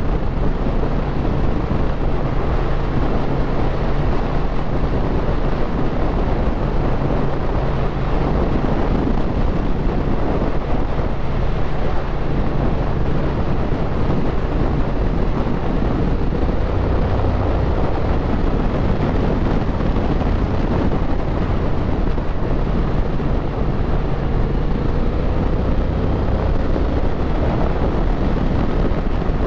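Triumph Speed Twin 1200's parallel-twin engine running steadily while the motorcycle is ridden, mixed with wind buffeting the microphone.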